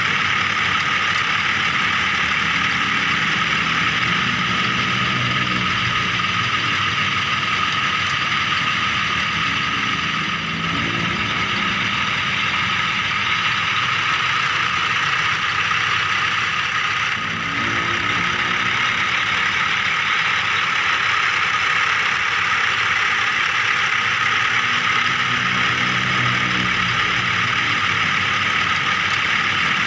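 Small electric motors and gears of a remote-control toy vehicle whirring steadily, with a lower pitched drone that comes and goes several times.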